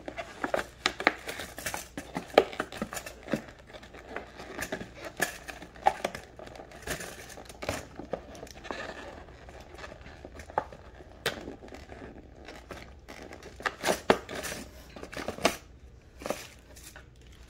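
Hands working open plastic and cardboard packaging: irregular crinkling and rustling with many sharp clicks and taps.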